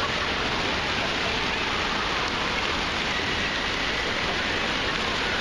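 Steady rush of falling and splashing water at an indoor waterpark, an even wash of noise with no single splash standing out.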